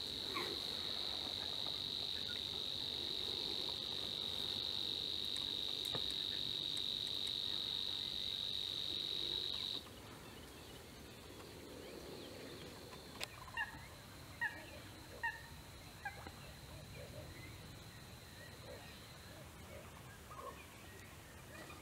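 An insect's steady, high-pitched buzzing trill, loud for about ten seconds, then suddenly much fainter until it fades out near the end. A handful of short chirps come a little past the middle.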